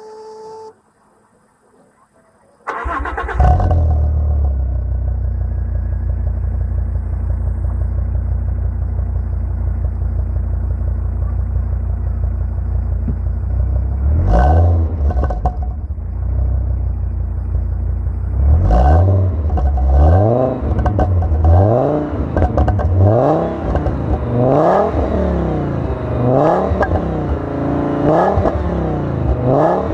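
A short beep, then about three seconds in the Fiat Bravo HGT's 2.0 five-cylinder engine starts through its VIS exhaust and idles, with one blip of the throttle around the middle. For the last third it is revved again and again, each rev rising and falling in pitch.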